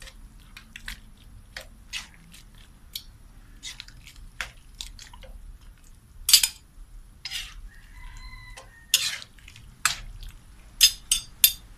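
Metal ladle stirring cubed pork in a wet sauce in an aluminium wok: scattered scrapes and clinks of the ladle on the pan. The sharpest knocks come about six, nine and eleven seconds in.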